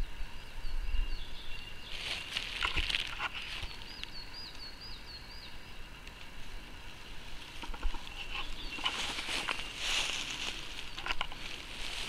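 A small songbird sings twice, each time a quick run of repeated wavy high notes, over forest ambience. In between come a few short rustling hisses, around two seconds in and again near the end.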